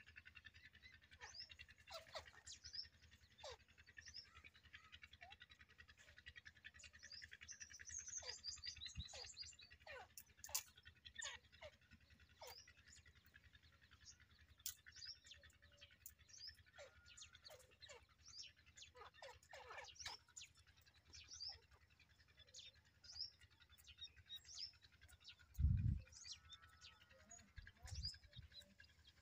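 Francolin chicks peeping: many short, faint, high-pitched cheeps scattered irregularly, with a few low thumps near the end.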